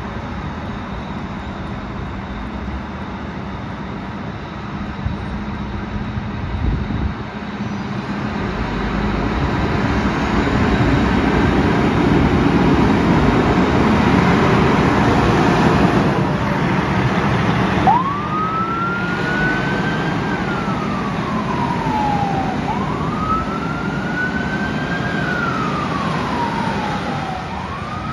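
A fire engine's diesel engine runs and grows louder as the truck pulls out. About two-thirds of the way in, its siren starts a slow wail, sweeping up in pitch and gliding back down about three times.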